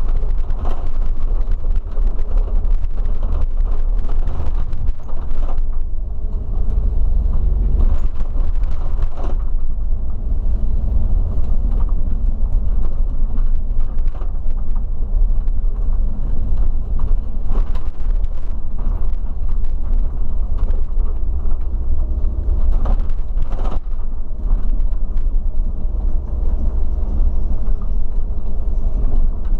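Inside a regional coach's cab on the road: a steady low engine and road rumble whose engine note shifts in pitch, with a scattering of creaks and rattles from the bodywork and fittings.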